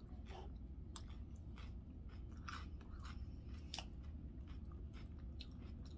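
A person chewing a mouthful of chicken salad, with scattered faint crunches, over a steady low hum.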